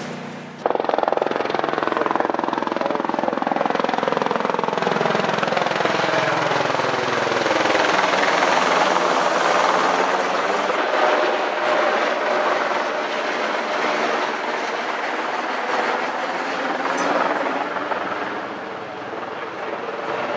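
Light helicopter flying low overhead: a loud, steady rotor and turbine noise that cuts in abruptly just under a second in, its tone sliding slowly down and then back up as it passes.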